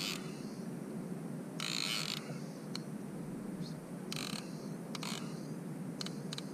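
Fishing reel drag giving line in short, irregular spurts as a hooked kingfish pulls against the bent rod, over a steady low rush.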